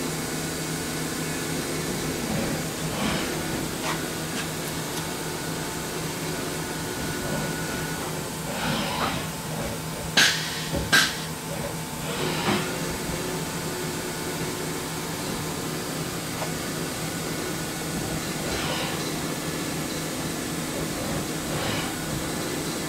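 Printer gantry driven by NEMA 23 stepper motors turning an Igus high-helix lead screw with a 50 mm lead: a steady mechanical hum with a few steady whine tones, and faint swishes now and then as the carriage moves. Two short, sharp hisses, about a second apart near the middle, are the loudest sounds.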